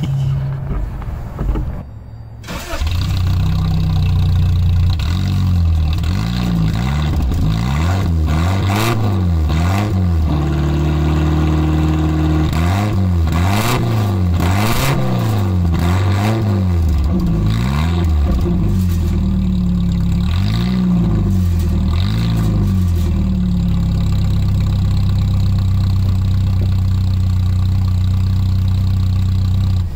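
Toyota Van Wagon's four-cylinder engine starting up about two and a half seconds in, then being revved up and down again and again before settling into a steady idle for the last several seconds. It runs through a newly test-fitted replacement muffler.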